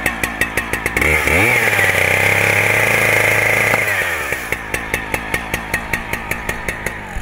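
Two-stroke chainsaw idling with even, rapid firing pulses, then revved up to full throttle about a second in, held for about three seconds, and let fall back to idle.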